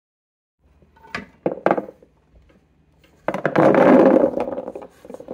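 A few knocks as a pot of beans is handled, then from about three seconds in a loud, dense clatter of kidney beans, chickpeas and black beans tumbling out of the tipped pot onto a hard countertop.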